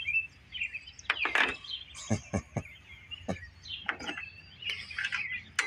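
Light metallic clinks and taps, several spread apart, as sockets are tried on the engine's flywheel nut, with birds chirping in the background.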